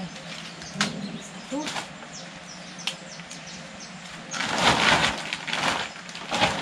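Green corn being husked by hand: the leafy husks tearing and rustling as they are stripped from the ears, with a few sharp snaps and a louder stretch of rustling from about four to six and a half seconds in.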